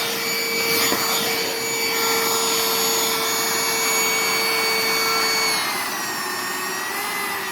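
Cordless upright wet vacuum cleaner running, a steady motor whine over rushing air. About five and a half seconds in, the whine drops slightly in pitch and level and runs on a little lower.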